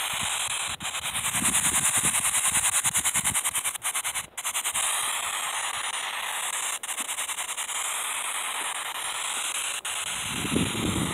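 Spirit box sweeping through radio frequencies: steady static hiss chopped by rapid, evenly spaced clicks several times a second.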